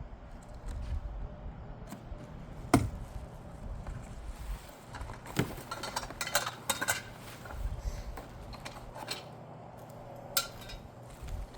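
Metal parts and packaging being handled during unboxing: scattered knocks and clinks, the loudest a sharp knock about three seconds in, a quick run of clinks in the middle and one more near the end, over a low rumble of wind on the microphone.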